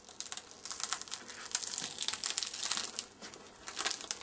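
Layered cardboard panel from a suitcase wall being pulled and peeled apart by gloved hands: dense crackling and rustling, with a brief lull shortly before the end.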